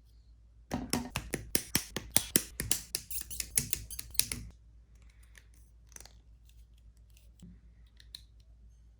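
Plastic model kit parts being handled: a quick run of sharp plastic clicks and snaps for about four seconds, then a few faint scattered clicks.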